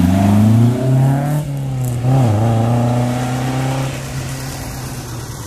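Classic rally car's engine revving at the time-trial start, held at steady revs with a brief dip about two seconds in, then fading near the end as the car moves off.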